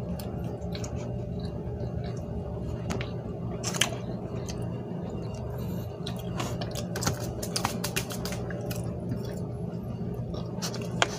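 A person chewing soft bread soaked in spicy cup-noodle broth, with scattered short clicks over a steady low room hum.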